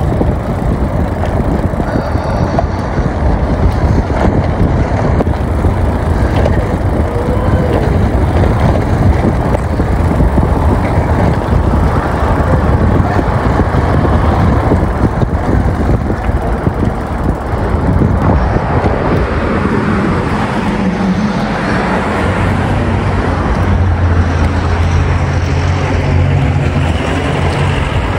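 Bicycle rolling over brick paving, a steady rough rumble and rattle. From about two-thirds of the way through, a motor vehicle's engine hums nearby.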